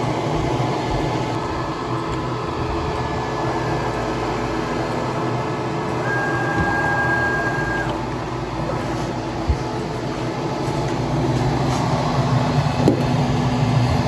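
ShopSabre 23 CNC router running its homing routine after power-up: the axis drive motors run as the spindle head travels to its home position, over a steady machine hum, with a thin steady whine for about two seconds near the middle. A knock and a few clicks in the last few seconds.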